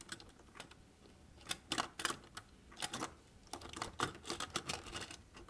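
Light plastic clicks and taps of LEGO pieces as a small LEGO race car is pushed into a toy truck's trailer, scattered and irregular, busier in the second half.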